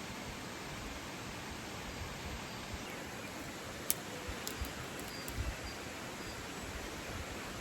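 Steady rushing of a waterfall, with a few short sharp clicks around the middle.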